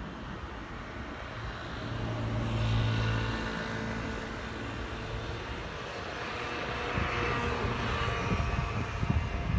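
Electric train noise: a steady low hum from the train's equipment and motors over a rumbling background, with a higher whine and rumble building in the second half.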